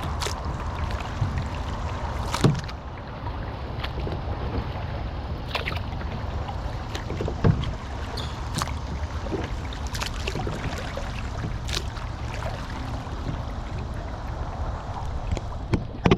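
Kayak paddling: paddle strokes in the water, with sharp clicks and knocks now and then, over a steady low rumble.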